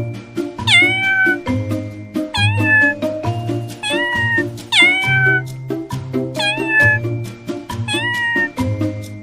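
A domestic cat meowing six times, each meow starting high and quickly dropping to a held tone, over background music with a steady rhythmic melody.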